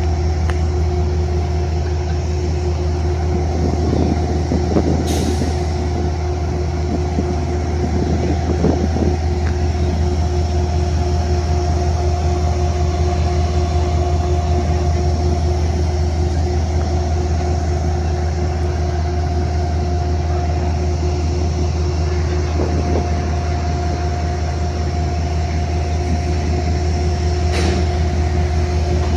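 Amtrak diesel train idling at a station platform: a steady, unchanging low drone with a constant hum tone over it. A sharp click comes about five seconds in, and another near the end.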